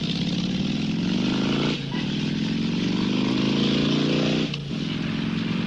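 Motorcycle engine accelerating through the gears: its pitch climbs steadily, drops sharply at each upshift about two seconds in and again near the end, then climbs again.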